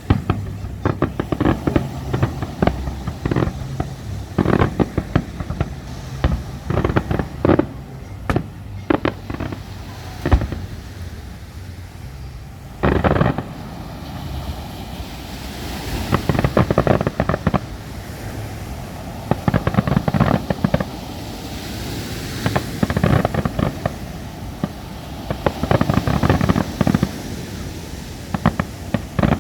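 Fireworks going off in a rapid, uneven series of bangs, with one heavy bang about halfway through and dense bursts of crackling in the second half.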